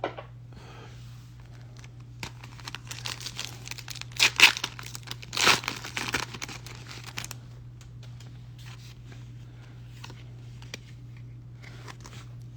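Foil Pokémon card booster pack wrapper tearing and crinkling, with two louder rips about four and five and a half seconds in, then fainter rustling.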